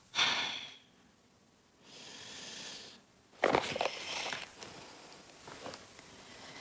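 A coin flicked into the air with a brief metallic ring, then about three and a half seconds later a sharp impact as it is caught or lands.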